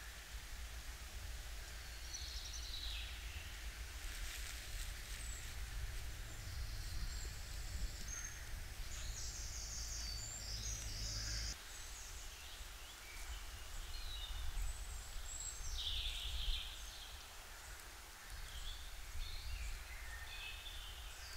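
Woodland ambience: birds chirping here and there over a low steady rumble.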